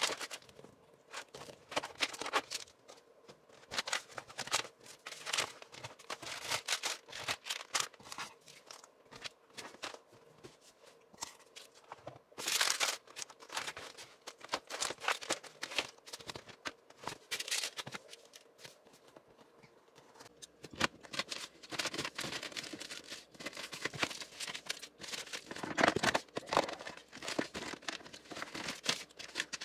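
Papers and bags being handled and pulled out of a car's interior: irregular rustling and crinkling with scattered clicks and knocks.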